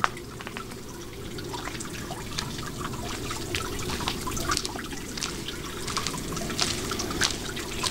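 Water running steadily from a village fountain, trickling and splashing with many small irregular drips.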